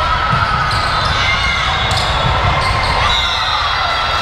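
Volleyball play on a hard indoor court: ball thuds and bounces, with short high squeaks of sneakers on the floor, in a reverberant gym.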